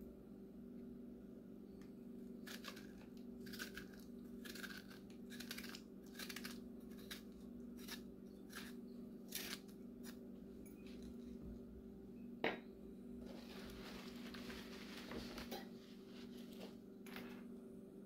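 A spoon scraping the seeds and pulp out of a halved cucumber in a run of short strokes. About twelve seconds in comes a single sharp click, then a few seconds of plastic crinkling. A steady low hum runs underneath throughout.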